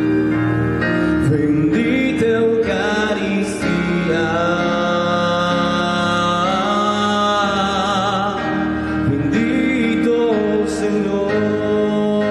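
Church hymn: a singer with instrumental accompaniment, held notes sung with a wavering vibrato.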